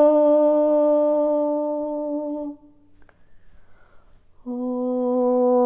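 A woman's voice holding a long, steady hummed or toned note, which stops about two and a half seconds in. After a pause of about two seconds she takes up a new held note, slightly lower in pitch.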